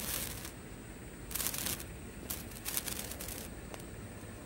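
A 15 cm red colour sparkler fizzing and crackling in spells of sparks, at the start, about a second and a half in, and for about a second from just past two seconds, then dying down to a faint hiss as it burns out near the end.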